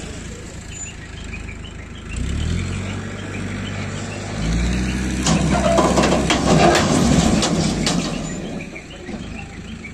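Escorts Hydra crane's diesel engine revving up under load, once about two seconds in and harder from about four and a half seconds, as it hauls an overturned truck's chassis up off the ground. A burst of clattering and scraping rides over the engine for about three seconds, the loudest part, before the engine eases back near the end.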